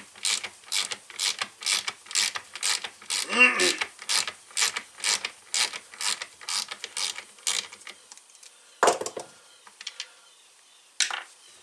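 Ratchet tool clicking in a steady run of about three clicks a second. The clicks stop, there is one louder knock, and a few more clicks follow near the end.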